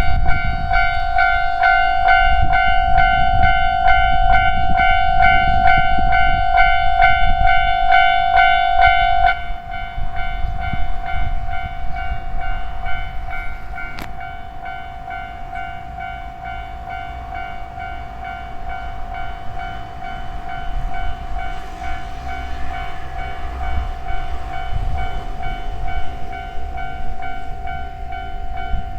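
Japanese level-crossing alarm ringing steadily in a fast repeating pulse while a train rumbles over the crossing. About nine seconds in, the rumble and the ringing both drop in level, and the alarm keeps ringing.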